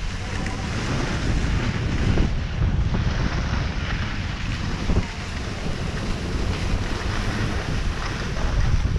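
Wind buffeting the microphone of a camera worn by a skier moving downhill, a steady low rumble, over the hiss of skis sliding on groomed snow.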